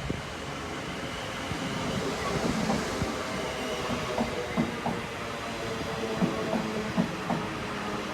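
A class 450 Desiro electric multiple unit moving along the track: a steady rail rumble that builds over the first couple of seconds, with irregular short knocks and clicks from the wheels on rails freshly ground.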